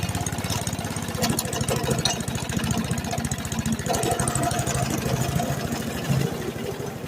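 Old lawnmower's small engine, fed by a small motorcycle carburetor, running steadily with a rapid, even beat shortly after a cold start.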